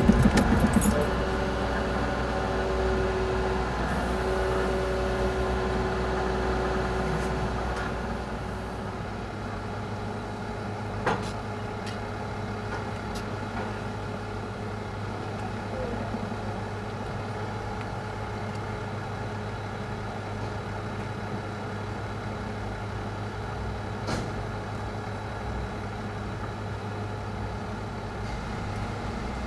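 Road traffic at a level crossing: motor vehicle engines running, louder for the first several seconds, then settling to a steady low hum of waiting traffic, with a couple of short knocks.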